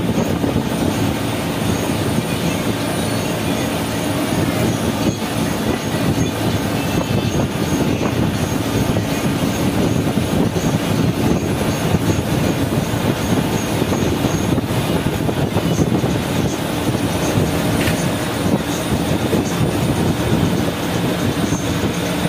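Cabin noise of an SETC AC seater-cum-sleeper bus cruising at highway speed: a steady engine drone under continuous road and wind noise, with no change in pace.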